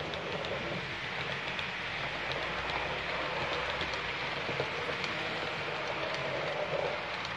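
Model trains rolling along the layout's track: a steady rushing rattle of wheels on rails with many light clicks.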